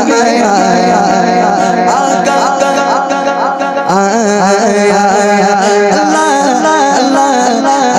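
A man singing an Islamic devotional naat into a microphone, in long held notes that wind up and down in pitch. He steps up to a higher note about four seconds in.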